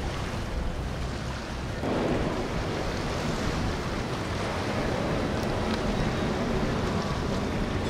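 Boat running on the water: engine rumble and wash, with wind buffeting the microphone. The sound grows louder abruptly about two seconds in.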